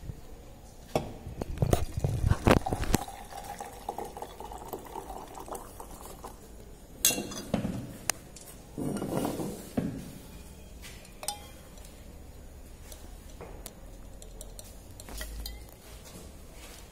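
Laboratory glassware clinking and knocking, with liquid poured into a glass tube. There are several knocks in the first few seconds, a sharp clink about seven seconds in, and a brief pour about nine seconds in.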